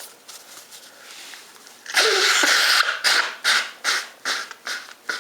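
A person blowing their nose without honking: one long blow about two seconds in, then about six shorter blows in quick succession.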